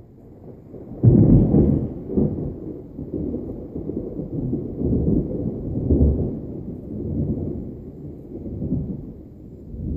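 Thunder: a sudden loud crack about a second in, then a long rolling rumble that swells and fades several times.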